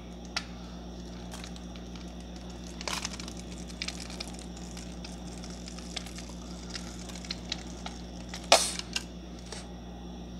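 Mustard squeezed from a plastic squeeze bottle: faint squishes and small clicks over a steady low hum, with one short, louder sputter about eight and a half seconds in.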